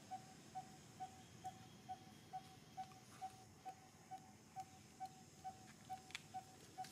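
Faint, evenly spaced short pips on one pitch, a little over two a second, with a couple of light clicks near the end.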